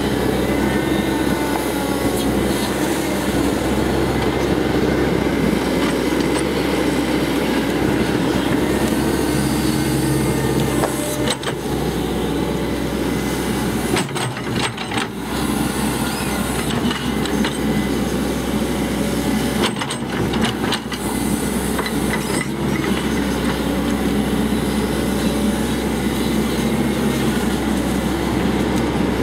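Cat 312C excavator's diesel engine running steadily under working load, with the rumble and rattle of the machine digging, briefly dipping a few times near the middle.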